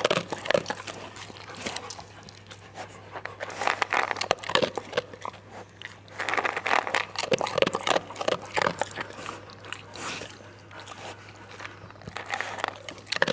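A pet dog close to the microphone, panting in short irregular bursts.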